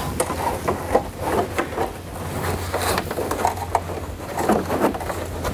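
Felt hood insulation pad being handled and pressed into place against the underside of a steel car hood: irregular rustling, scuffing and light knocks, over a steady low hum.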